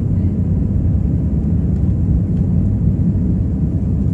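Steady low rumble of an Airbus A319's engines and rushing airflow, heard inside the passenger cabin in flight.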